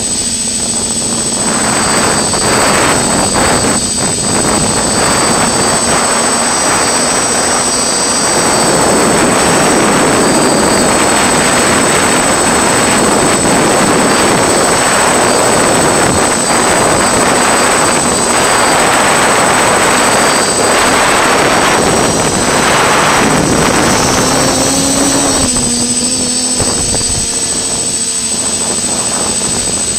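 FPV quadcopter's electric motors and propellers whining, heard from the drone's onboard camera, with shifting pitch and a constant high tone. A rushing of air grows louder a few seconds in and eases near the end.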